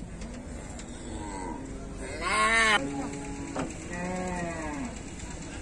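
Cattle mooing: three drawn-out calls in a row, the second, about two seconds in, the loudest.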